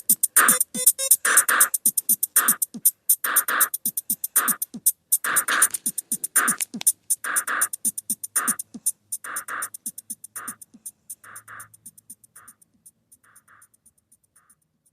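A percussive beat with a strong hit about once a second over fast ticking hits, fading gradually to nothing near the end: the outro of a song demo.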